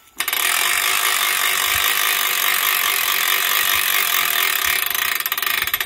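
Geared boat winch paying out its strap as it is pulled off the drum, the ratchet and gears clicking very fast in a continuous clatter that slows into separate clicks near the end.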